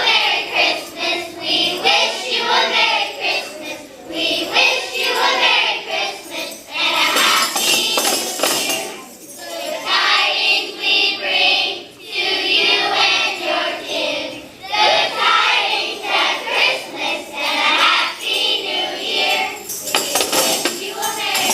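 Group of children singing together, with tambourines shaken and struck in time throughout.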